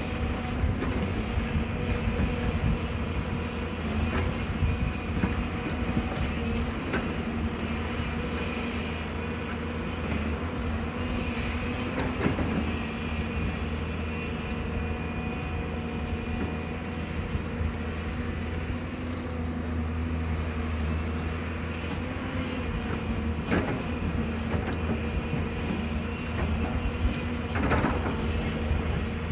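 Excavator diesel engine running steadily under work, with a few sharp knocks spaced through it.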